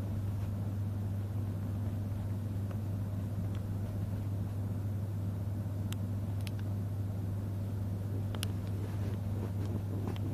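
Steady low hum at an even level, like a room appliance or electrical hum. A few faint clicks come about six seconds in and again around eight and a half seconds.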